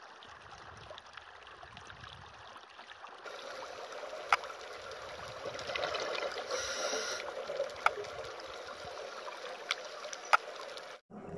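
Underwater reef ambience: a steady rushing water hiss that gets louder about three seconds in, with a few sharp clicks scattered through it.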